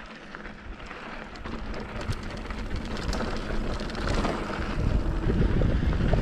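Mountain bike rolling fast down a dry dirt trail: tyres crunching over loose gravel with many small clicks and rattles, and wind rumbling on the microphone, growing steadily louder as speed builds.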